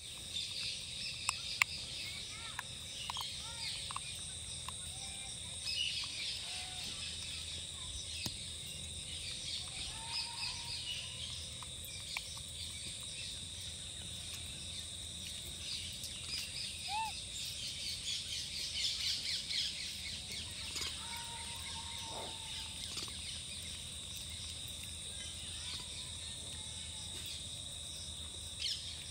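Outdoor ambience of birds chirping against a steady high insect drone, with a few short whistled calls scattered through.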